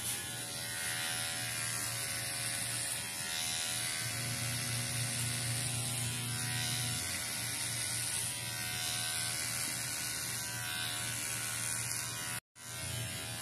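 Corded electric hair clipper buzzing steadily as it shaves a head down close to the scalp. The sound drops out for an instant near the end.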